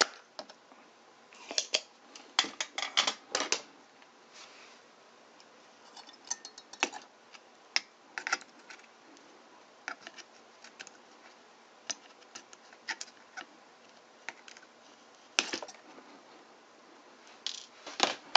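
Spring-loaded desoldering pump (solder sucker) being cocked and fired while a diode is desoldered, with handling knocks of the circuit board and tools: a run of sharp clicks and snaps, bunched in the first few seconds and scattered after.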